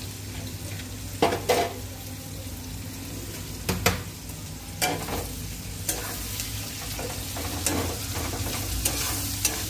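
Rice boiling in an aluminium pot and onions frying in a kadai on a gas stove, a steady frying hiss. Metal utensils clink sharply against the pots about eight times.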